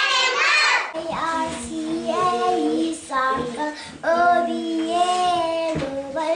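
A class of young children chanting together in unison in a sing-song, drawing out each syllable on held notes, as in a rote classroom recitation.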